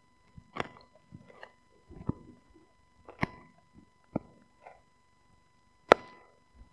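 A husky gnawing a rawhide-style bone, with irregular crunching bites about one a second, the loudest one near the end.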